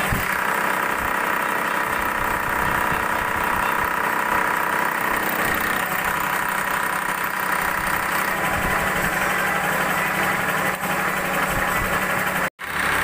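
Milling machine running steadily with a hum and a steady whine as its cutter mills spline teeth along a steel shaft. The sound cuts out for an instant near the end.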